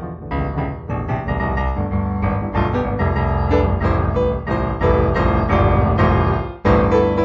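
Solo piano music, improvised, played as a flowing stream of notes. It breaks off briefly about six and a half seconds in, then comes back with a loud chord.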